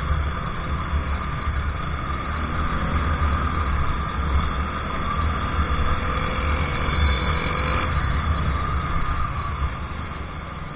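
Wind buffeting the microphone with the steady drone of a TVS Ntorq 125 scooter's engine and road noise, heard from the rider's position while riding in traffic; the sound eases a little near the end.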